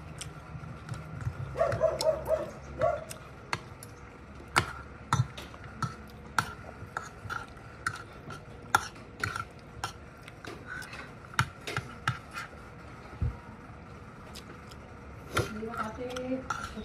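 Spoon and fork clinking and scraping against a plate of rice: scattered light clicks, roughly one every half second to a second.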